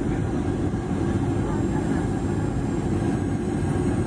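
Steady cabin noise of a Boeing 737-800 airliner descending on approach, heard from a window seat beside the engine: a deep, even rumble of engine and airflow with faint steady whines above it.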